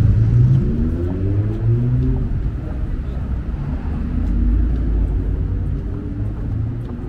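Road traffic passing on a city street: a steady low rumble of vehicles, with an engine rising in pitch as it speeds up, once about half a second in and again around four seconds in.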